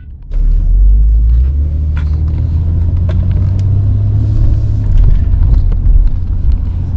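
Loud, steady low rumble that starts about a third of a second in, with a few faint ticks above it.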